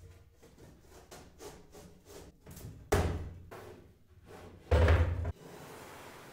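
Wooden drawer panels being handled, knocking and rubbing against each other, with a sharp loud knock about three seconds in and a heavier thump near five seconds as the assembled drawer box is set down on the workbench.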